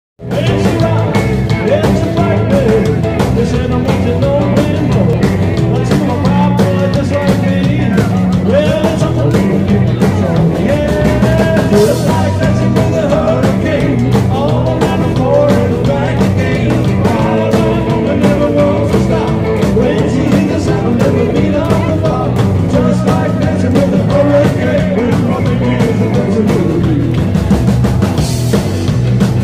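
Rockabilly band playing live: electric guitars and drums, with a man singing lead into the microphone.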